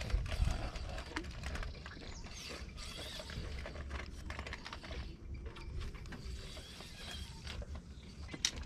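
Shimano Twin Power spinning reel being cranked to retrieve a lure, its turning handle and gears giving a continuous run of quick mechanical clicks.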